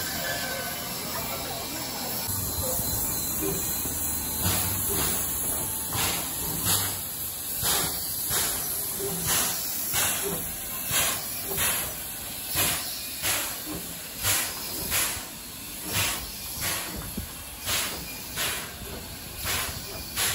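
JNR Class C11 steam tank locomotive dressed as Thomas, first hissing steam at a standstill. About four seconds in it starts chuffing as it pulls away, with even exhaust beats a little under two a second.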